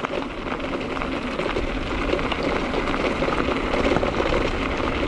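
E-mountain bike rolling along a path: steady crackling tyre noise on the trail surface with wind rushing over the camera's microphone, growing slightly louder.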